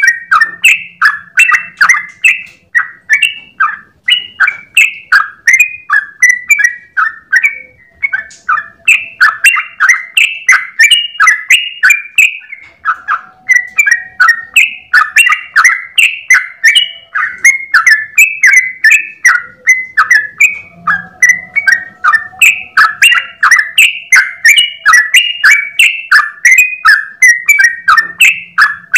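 Yellow-vented bulbul (trucukan) singing a long, unbroken run of quick chirping notes, about three a second, in the rapid 'ropel' style, with only brief breaks about 8 and 13 seconds in.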